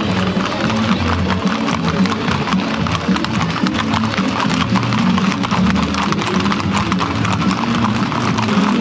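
Horses' hooves clip-clopping in quick, irregular clicks, with music playing over them.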